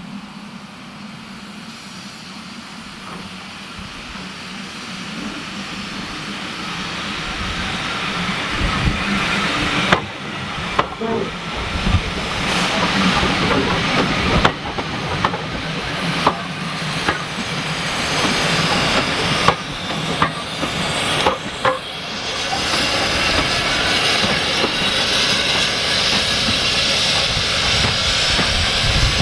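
A train approaching on the line, getting steadily louder throughout, with a few sharp knocks and brief dips in level through the middle.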